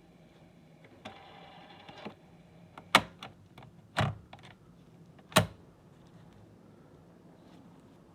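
Panasonic RQ-8000 cassette player: its motor whirs for about a second, starting and stopping with a click, then three loud mechanical clunks follow about a second apart, with lighter clicks between them.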